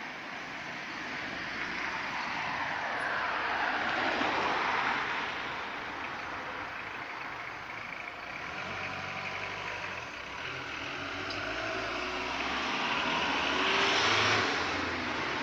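Light fire truck driving past close by, its engine and tyre noise swelling to a peak about four seconds in and again near the end, with the engine running lower between the two passes.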